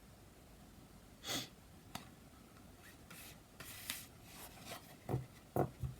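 Playing cards being handled on a table: a brief rustle and a click, scattered rubbing as cards slide, then three short soft taps near the end as cards are laid down.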